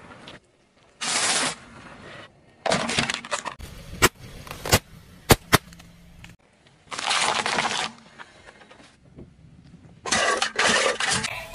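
Plastic and wooden toys crushed under a slowly rolling car tyre: several short bursts of crunching and cracking, with a few sharp snaps in the middle.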